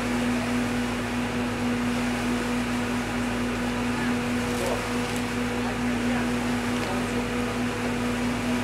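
Steady machinery hum from a river motor ship, with one strong constant tone over a low drone and even noise, unchanging throughout.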